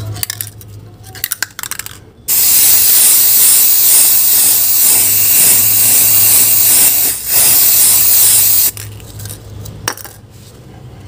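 Aerosol can of enamel spray paint spraying in one long, loud hiss of about six seconds, starting about two seconds in with a brief break near the end. A few light clicks come before it.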